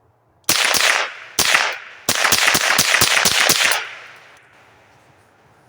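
Savage Model 62 semi-automatic .22 LR rifle firing a rapid string of shots: a close pair, another about a second later, then a fast run of about ten shots, several a second, that stops about four seconds in.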